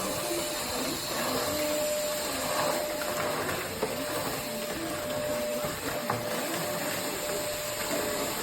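VersLife S6 Pro cordless stick vacuum running steadily: an even rushing hiss of airflow with one steady motor tone, and a couple of light clicks.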